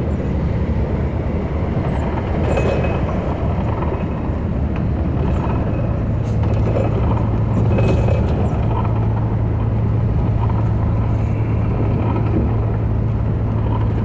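Vehicle driving through heavy rain at night, heard from inside the cab: a steady engine hum and wet road noise. A low steady drone joins in about five seconds in.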